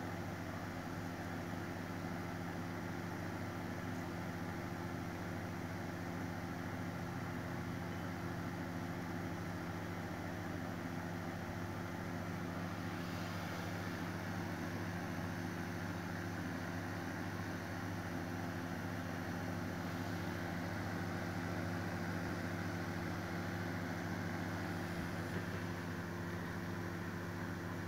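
A steady low machine hum that stays even in level and pitch throughout.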